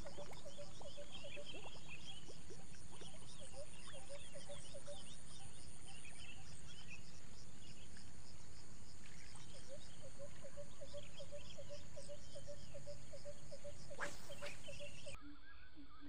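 Swamp chorus: insects trilling in a steady, evenly pulsing rhythm, a frog calling in runs of short notes, and birds chirping. A brief swish comes about fourteen seconds in, and the sound changes abruptly a second later.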